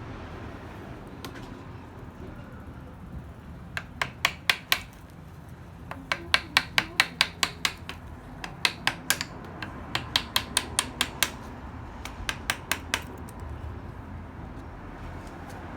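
Mallet striking a carving chisel into chestnut wood: runs of sharp taps, about three to four a second, in five bursts with short pauses between them.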